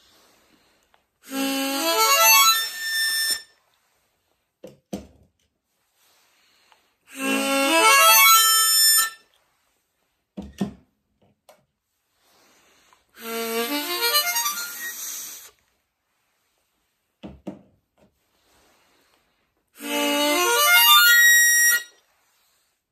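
Four short demo phrases on different diatonic harmonicas. Each is a quick run of notes rising in pitch, lasting about two seconds, with a few seconds of quiet between them. Soft handling knocks fall in the gaps as one harp is put down and the next is picked up.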